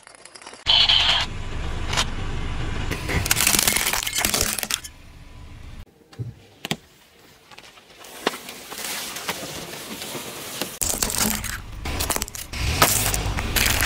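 A car tyre crushing objects on asphalt: a series of separate cracks, crunches and sharp snaps as brittle plastic breaks under the wheel, some of them over a low rumble.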